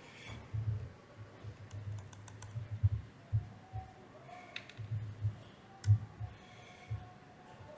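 Typing on a computer keyboard: irregular keystrokes and a few sharper clicks, picked up with dull thumps through the lectern microphone.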